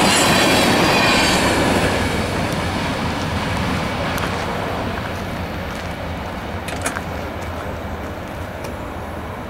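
Freight train of oil tank cars rolling past on the rails, its wheels rumbling and clattering, with a thin high wheel squeal in the first two seconds. The sound fades steadily as the last cars go by and the train moves away.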